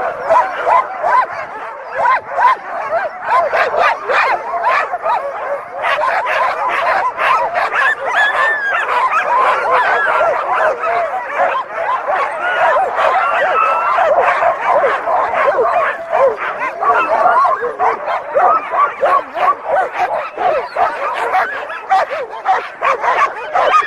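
A pack of sled dogs barking and calling over one another in a loud, unbroken chorus of many voices.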